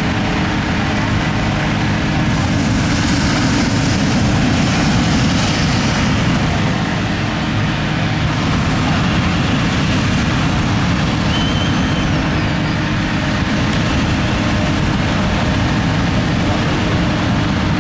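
Engine-driven inflator fans running steadily as hot air balloon envelopes are cold-inflated, a loud continuous engine hum with crowd voices underneath.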